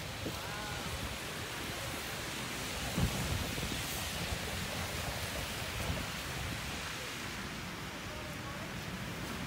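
Steady hiss of blizzard wind and blowing snow, with a dull thump about three seconds in.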